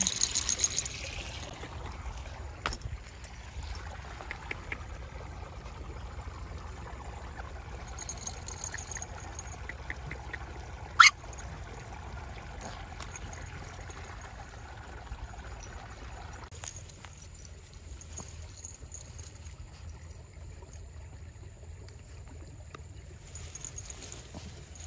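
Shallow stream trickling over rocks. At the very start a wet puppy shakes water from its coat. About eleven seconds in comes one very short, sharp click, the loudest sound here.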